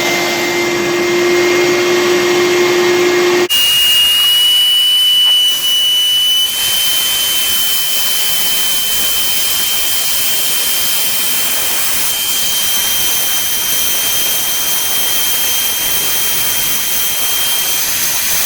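Shop vac running steadily while sucking ash out of a coal furnace's clean-out. Its whine jumps suddenly to a higher pitch about three and a half seconds in and then holds steady.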